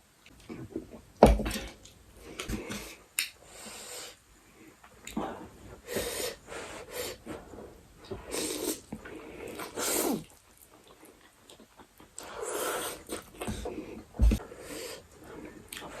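A person eating close to the microphone: chewing and wet mouth noises, with loud breaths and sniffs in between.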